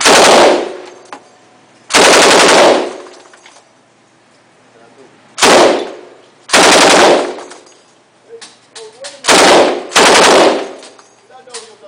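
Machine gun firing six short bursts of automatic fire, each under a second long, spaced one to three seconds apart, with echoing tails after each burst.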